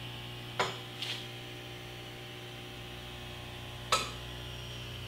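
Steady electrical mains hum with three short, sharp clicks, the first two about half a second and a second in and the last, the loudest, near four seconds in.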